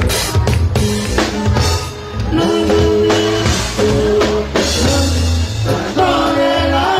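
Norteño band playing live: button accordion over bass and a steady drum beat, with a voice singing.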